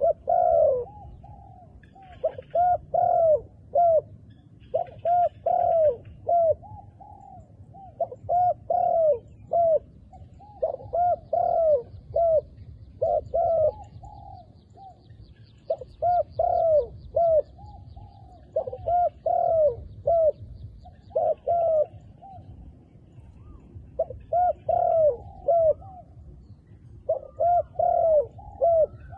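Dove cooing in repeated phrases of three or four arching notes, a new phrase every two to three seconds. Faint higher bird chirps and a thin, high buzzing trill for several seconds around the middle.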